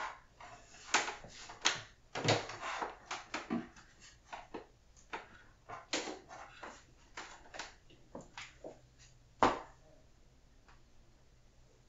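Computer cables and plastic desk accessories being handled and set down on a desk: a string of irregular clicks, knocks and rustles, with one sharp knock about nine and a half seconds in.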